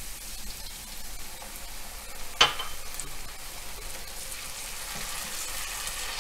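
Grated carrot, leek and garlic sizzling steadily in hot fat in a frying pan, with soy sauce just poured in, while a wooden spoon stirs them. One sharp knock sounds about two and a half seconds in.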